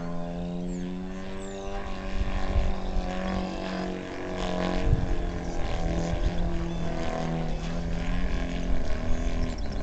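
3W 100 B2 twin-cylinder two-stroke gas engine of a large RC aerobatic plane running in flight overhead, a steady drone whose pitch shifts a little as the plane manoeuvres. A low rumble builds beneath it from about two seconds in.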